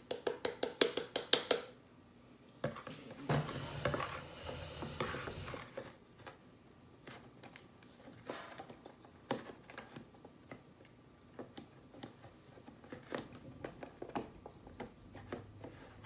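Stainless steel grounds cup of an OXO Brew conical burr coffee grinder being handled and pushed into the grinder's base: a quick run of light taps in the first second and a half, a rustling scrape for a few seconds, then scattered small knocks. No soft latching click is heard, as the cup does not clip in tightly.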